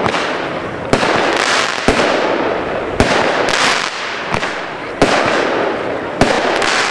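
Consumer firework battery (Pyro Austria 'Black Mamba' cake) firing shot after shot, about once a second. Each sharp bang is followed by a hissing, crackling tail from the bursting golden stars.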